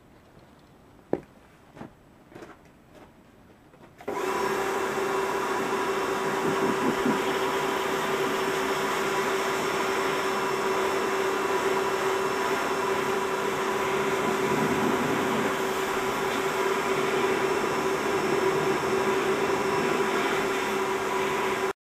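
Small electric pressure washer starting about four seconds in and running with a steady hum, its motor and pump driving water through the spray wand. A few faint clicks come before it starts, and it cuts off suddenly near the end.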